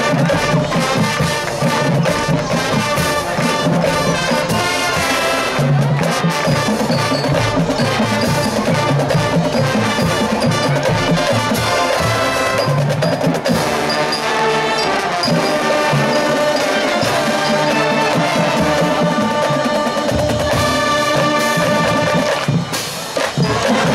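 Marching band playing: brass chords over marching drums and front-ensemble mallet percussion. The sound dips briefly near the end.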